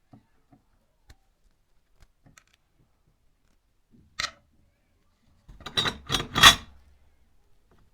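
Rusty metal twig scissors handled: faint scattered ticks, a sharp metal click about four seconds in, then a short loud clatter of metal clicks and scraping about six seconds in.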